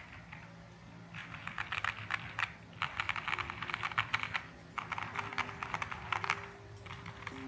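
Typing on a Tech Bear TB8 TKL mechanical keyboard with Royal Hakko True switches and dye-sub keycaps, top-mounted on an aluminum plate with cuts and with foam, unmodded. Quick runs of keystroke clacks come in three bursts starting about a second in.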